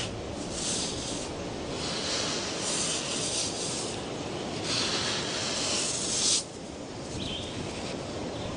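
A female crocodile scraping sand over her nest of freshly laid eggs: a gritty rustling hiss in several bursts, the longest about two seconds.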